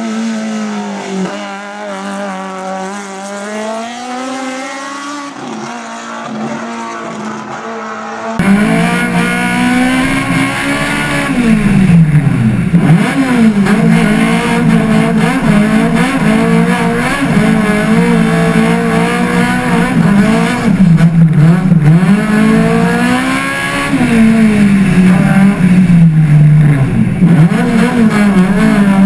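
Opel Kadett GTE hillclimb race car's engine revving hard through the gears, its pitch climbing and dropping at each shift. It is fainter for the first eight seconds or so, then suddenly much louder and closer.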